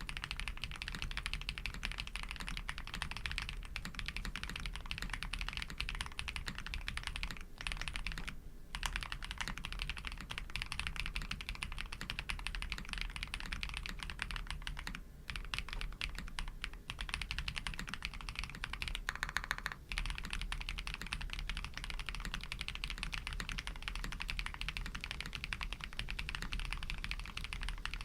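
Custom Tiger Lite 80 mechanical keyboard being typed on continuously: Krytox-lubed Pado v2 switches under GMK keycaps on a polycarbonate plate, a fast stream of key clacks with a few brief pauses.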